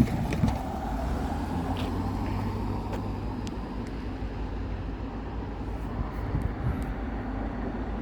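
Diesel freight locomotive, a GE AC-series unit, rumbling steadily at low power as the train creeps along at a crawl.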